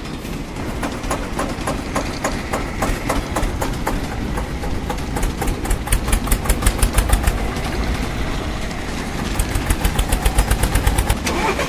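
Motorized toy vehicle running with a rhythmic engine-like chugging, which speeds up and gets louder about six seconds in and again from about nine seconds.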